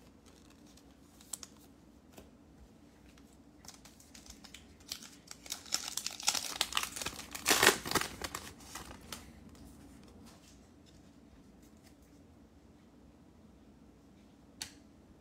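A Panini Mosaic football card pack's foil wrapper being torn open and crinkled by hand, with a few faint clicks at first and the crackling loudest between about six and eight seconds in. Near the end there is a single soft click as the cards are handled.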